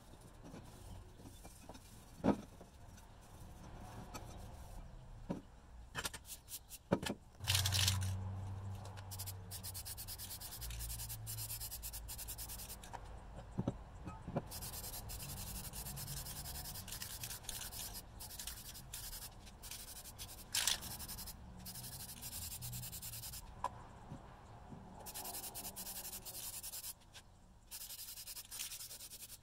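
Hand rubbing and scraping on a part of an old circular saw being cleaned: a scratchy hiss that stops and starts, with a few sharp knocks of parts or tools being set down.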